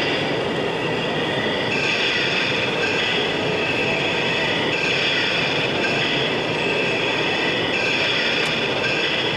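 Model trains running on a layout: a high-pitched whining squeal that steps to a new pitch every second or two, over a steady hum of background noise.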